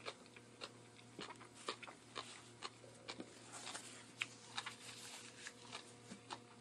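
Eating at the table: faint, irregular light clicks and taps, such as a metal fork makes against a plate, scattered throughout.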